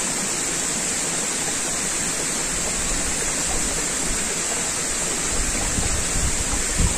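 Stream water rushing and babbling over rocks as a steady, even noise. A few low bumps come near the end.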